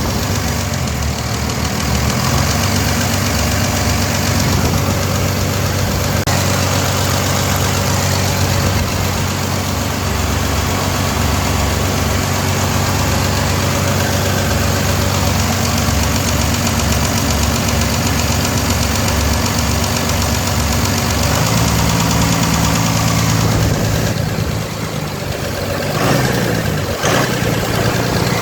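Freshly overhauled Cummins 6BT 5.9 inline-six diesel engine idling steadily on a test run. Its sound shifts and dips briefly a few seconds before the end.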